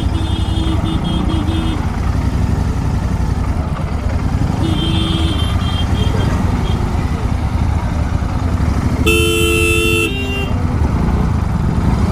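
Royal Enfield Continental GT 650's parallel-twin engine running on the move through aftermarket Gursewak Big Shot exhausts. Vehicle horns honk over it: short honks near the start and about five seconds in, and a louder horn blast of about a second around nine seconds in.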